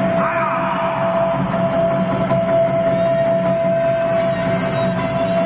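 Steady, dense wash of arena noise during a Lethwei fight, with a single high tone held unbroken throughout and a brief rising sweep near the start.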